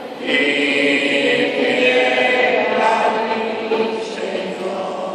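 A group of voices singing a hymn together, swelling louder about a third of a second in.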